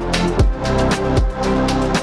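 Electronic background music with a steady driving beat: deep kick drums and sharp high percussion hits over sustained synth tones.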